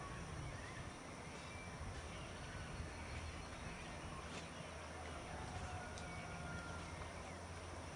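Faint outdoor ambience: scattered short, thin bird calls over a low steady rumble.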